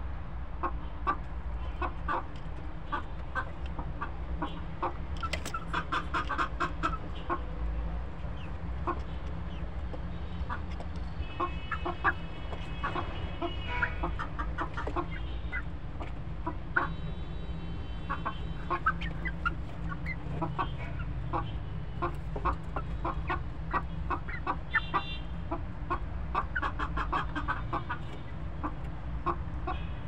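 Domestic hens clucking close by, with many short sharp taps and a few higher drawn-out calls among them, over a steady low rumble.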